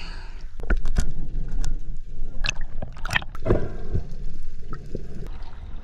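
Water splashing and gurgling as a snorkeler moves through the surface and under the water, with a few sharp, irregular splashes over a churning low rumble.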